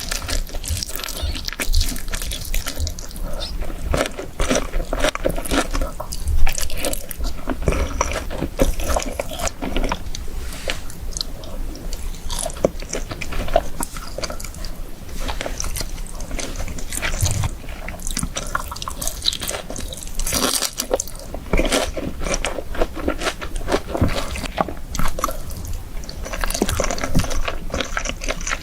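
Close-miked eating sounds: irregular crunchy bites into fried chicken and chewing, continuing throughout, with one especially loud bite about six seconds in.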